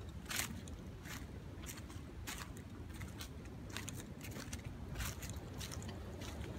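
Footsteps crunching through dry fallen leaves at a steady walking pace, about two steps a second.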